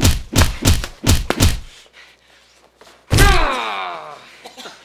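Boxing gloves hitting focus pads in a quick flurry of about six punches over a second and a half. About three seconds in comes one loud slam with a ringing tail that fades over about a second.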